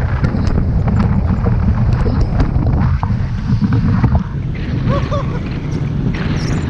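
Strong wind buffeting the microphone during a tandem paraglider flight, a loud, rumbling rush with scattered small clicks. A brief vocal sound comes about five seconds in.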